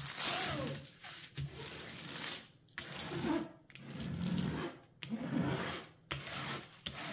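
Hands laying the clear plastic protective film back over a diamond-painting canvas and smoothing it down: a crinkle of plastic at first, then repeated sweeping rubs of palm on film, about one a second, pressing it flat so the canvas does not crease.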